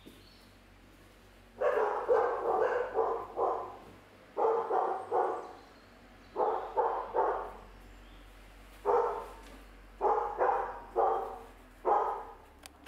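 A dog barking repeatedly in quick runs of several barks, with short pauses between the runs.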